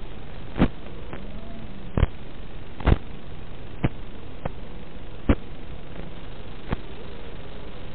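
Static from an analog FPV video link: a steady hiss broken by sharp pops about once a second, where the radio signal drops out.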